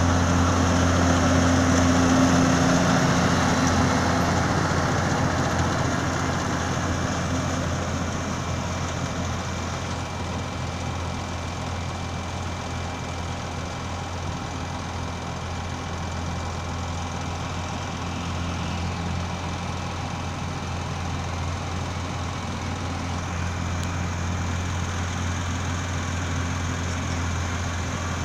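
Deutz Agrotron TTV620 tractor's engine running steadily with a low hum while it pulls a Göweil G1-F125 round baler-wrapper at work. Louder at first, it fades over the first ten seconds as the rig moves away, then grows slightly again near the end.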